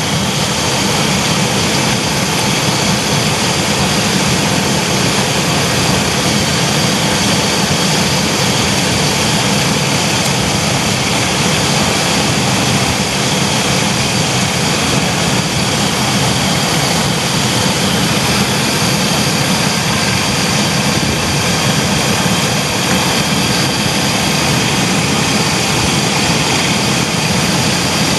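Chevy Astro van engine running steadily with the radiator open for a combustion-leak block test, with the thermostat removed.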